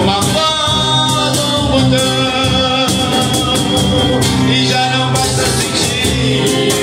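Live acoustic band: a singer singing into a microphone over two strummed acoustic guitars.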